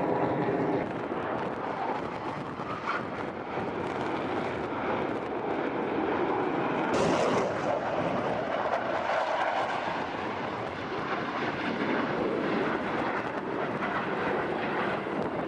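Aircraft engine noise: a steady rushing sound with no clear pitch, changing abruptly about seven seconds in.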